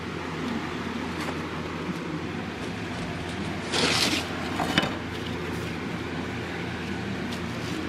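A steady mechanical hum. About four seconds in there is a brief rustle of cardboard templates being handled, then a sharp click.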